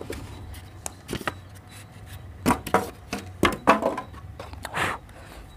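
Packing noise as a glass-topped induction cooktop is pulled out of its polystyrene foam end-pieces and handled: a string of short, irregular knocks and scrapes.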